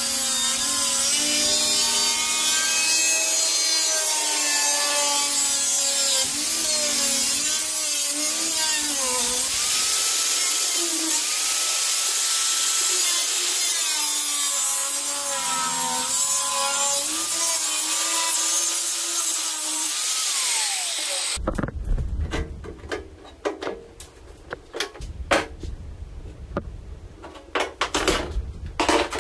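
Handheld electric power tool cutting through a boat's wooden deck, its motor pitch wavering up and down as it loads and frees. The tool stops abruptly about 21 seconds in, followed by scattered clanks and knocks of debris being handled.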